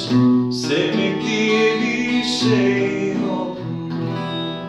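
Acoustic guitar strumming a few chords that ring on, fading toward the end.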